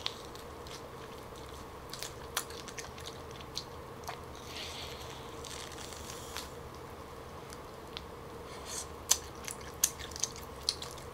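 Close-miked eating of a smoked turkey drumstick: biting into the meat and chewing, with scattered wet clicks and smacks. A run of sharper, louder clicks and smacks comes near the end.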